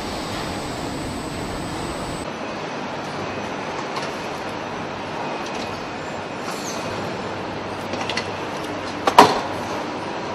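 Assembly-plant floor noise: a steady hum of machinery with a few sharp knocks, the loudest about nine seconds in.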